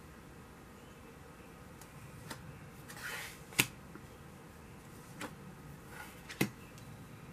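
Tarot cards being handled and laid down on a table: a short slide and a sharp tap about three and a half seconds in, the loudest, with a few lighter taps around it and another clear tap a little after six seconds.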